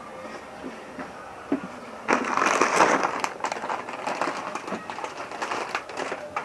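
Crackling, crunching noise close to the microphone, like a crunchy snack being bitten and chewed. It turns loud about two seconds in, with a few sharp clicks scattered through it.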